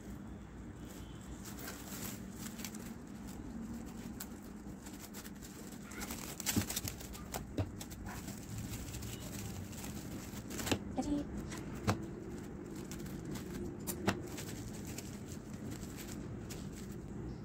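Cling film crinkling and rustling as hands wrap boiled eggs and thin wooden sticks in it, with a handful of sharp clicks of the wooden sticks knocking in the middle.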